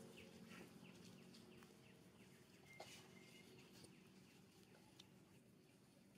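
Near silence: faint ambience with a steady low hum and scattered short, high chirps that fall in pitch, with a single click about three seconds in.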